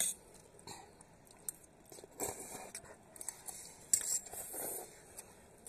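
Metal forks clinking and scraping on plates while instant noodles are eaten, with scattered light clicks and a sharper clink about four seconds in.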